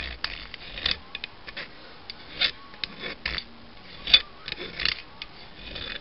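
Hand file rasping across a sharp cut edge in short, irregular back-and-forth strokes, deburring it smooth.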